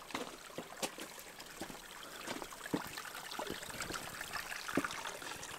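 Water trickling and dripping down a wet rock face, with occasional sharp taps over the steady trickle.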